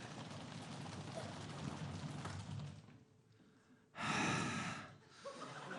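An audience drum roll that stops about three seconds in; after a short pause, one loud, heavy breath blown into a microphone, and the audience starts to laugh.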